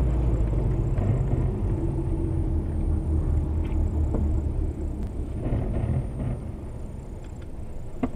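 Steady low road rumble of a car driving on a slushy highway, heard from inside the cabin: tyre and engine noise, easing slightly in the second half, with one sharp click near the end.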